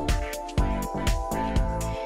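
Background music with a steady drum beat over held instrumental tones.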